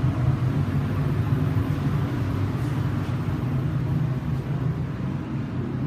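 Steady low rumble of running machinery, even in level with no breaks.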